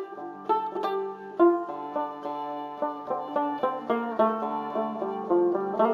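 Background music on a plucked string instrument playing a quick, steady run of notes.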